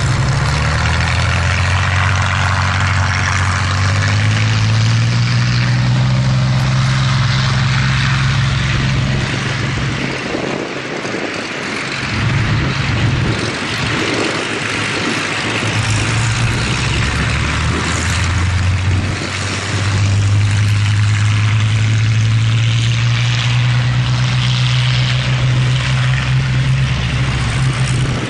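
Boeing B-17G Flying Fortress's four Wright Cyclone radial engines droning with a deep, slowly shifting note. The low note drops away for a few seconds around the middle, then comes back strongly.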